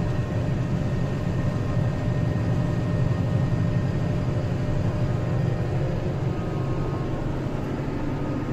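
Claas tractor engine running steadily under load, driving an Özen İş Kobra hay chopper off its PTO in 540 economy mode while creeping through the field, heard from the tractor cab. A constant low drone with a faint steady whine from the machinery, without change.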